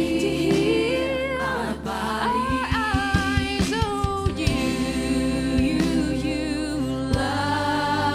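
Live worship music: a singer's voice holding and sliding between long notes over a steady, sustained low instrumental backing, with occasional light percussive clicks.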